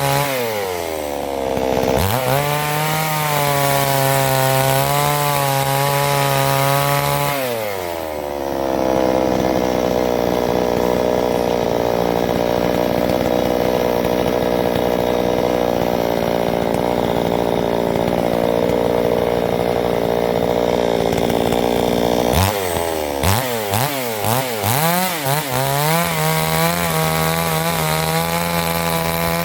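Two-stroke chainsaw on a vertical chainsaw mill cutting through a log. Its engine speed dips and climbs back near the start, then holds at a lower, steady speed for about fourteen seconds. After that it rises and falls several times before running high again near the end.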